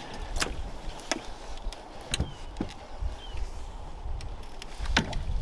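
Scattered knocks and clunks, the loudest about five seconds in, as a Honda 5 hp outboard motor is handled onto a small boat's transom, over a low rumble; the motor is not running.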